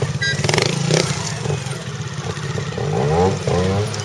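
Trials motorcycle engine running at low revs with a fast, even pulse, revved up in a rising sweep about three seconds in as the bike is worked over rocks.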